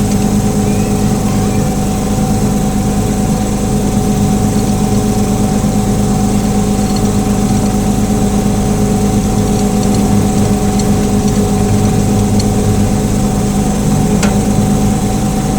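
Engine of a small 18-inch gauge locomotive running steadily during a cab ride, an even drone with a constant whine above it.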